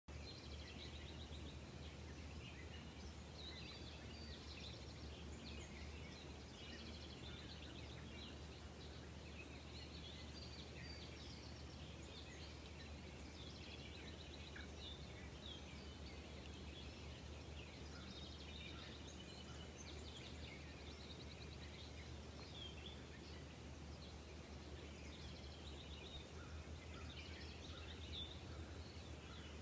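Faint birdsong: many small birds chirping in short, overlapping calls throughout, over a steady low hum.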